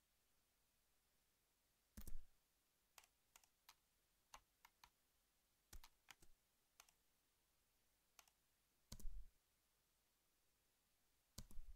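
Faint, scattered clicks of a computer mouse and keyboard, about a dozen at uneven intervals, the loudest about two seconds in and about nine seconds in, with a quick pair near the end.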